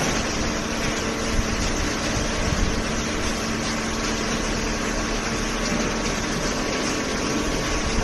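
Hydraulic cardboard baler and its feed conveyor running: a steady machine hum with a few held tones over a constant rush of noise.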